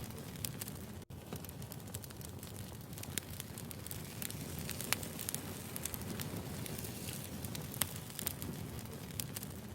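Wood fire burning in a fireplace: a steady low rumble with scattered sharp crackles and pops of burning logs. The sound drops out very briefly about a second in.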